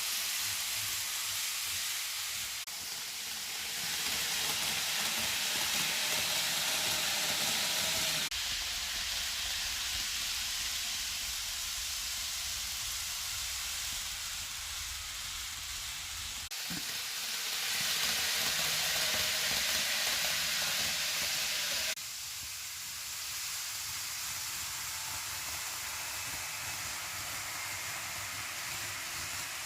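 N gauge model of a Kintetsu 80000 series 'Hinotori' train running on track: a steady rolling hiss with a faint motor whine in places. The sound changes abruptly several times, at about three, eight, sixteen and twenty-two seconds in.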